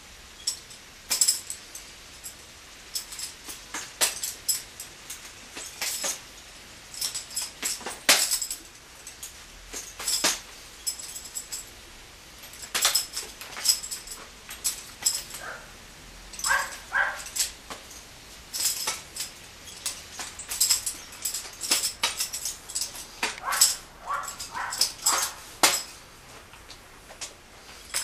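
Two drill rifles being spun, tossed and caught by hand: an irregular run of sharp clicks, knocks and metallic clinks from the rifles' stocks and fittings, each catch or slap a single sharp stroke.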